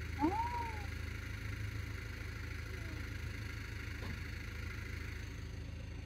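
Tour boat's engine running at a steady idle, a deep even hum under the wash of the water.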